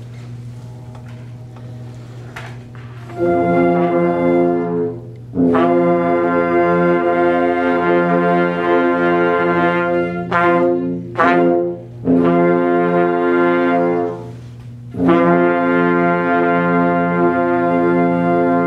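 Small wind ensemble playing held chords under a conductor's beat, in four phrases with short breaks between them and two brief detached notes in the middle. The playing starts about three seconds in, over a steady low room hum.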